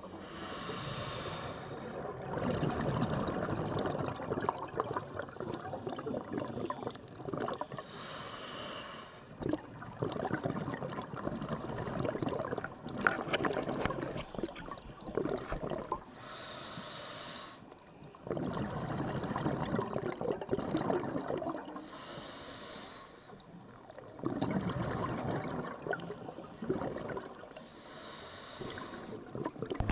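A scuba diver breathing through a regulator underwater: short hissing inhalations alternate with long spells of bubbling exhalation, about every six or seven seconds.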